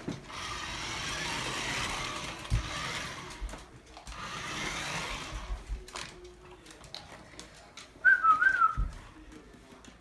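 Toy remote-control car's small electric motor whirring in two runs, about three seconds and then two seconds. About eight seconds in, a short, loud, wavering whistle.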